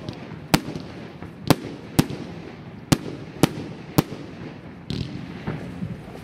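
Evolution Fireworks Rambam box firework cake firing, about six sharp bangs irregularly spaced half a second to a second apart, with a softer burst about five seconds in.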